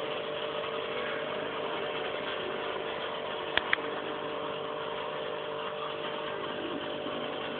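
Aquarium pump running with a steady hum and hiss. Two quick clicks, close together, about three and a half seconds in.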